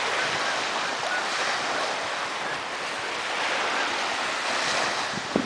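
Small Lake Michigan waves washing onto a sandy beach, with wind rushing over the microphone. A couple of short thumps come near the end.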